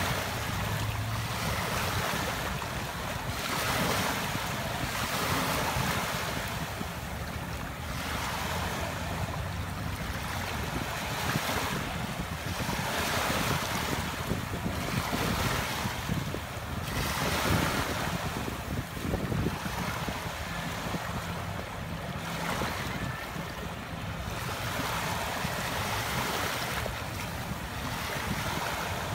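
Small waves breaking and washing up a sandy shore, a soft rush of surf swelling every couple of seconds, with wind rumbling on the microphone.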